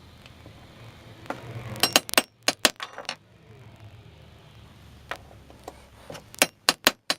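Sharp metallic clicks and clinks in two quick clusters, about two seconds in and again near the end: metal parts of an old breast drill being handled and tapped as a part is worked off.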